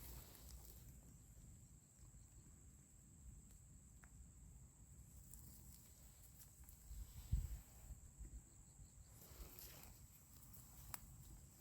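Near silence: faint outdoor ambience with a low rumble, a steady faint high tone, and a single soft low thump about seven seconds in.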